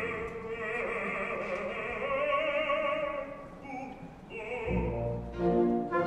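Operatic soprano singing a wavering vibrato line over orchestral accompaniment. The voice falls away at about three and a half seconds, and just under five seconds in the full orchestra comes in loud.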